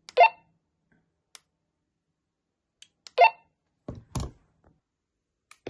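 Handling noise from a toy walkie-talkie being operated: faint button clicks and two short, sharp sounds about three seconds apart, then two dull knocks as the handset is moved.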